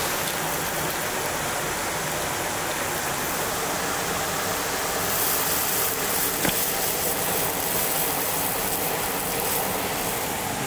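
Steady rushing of running water, with a single sharp click about six and a half seconds in.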